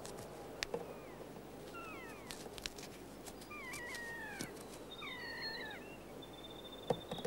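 Keas calling: several short, falling, wavering cries in small groups, with a few sharp clicks and a louder knock near the end.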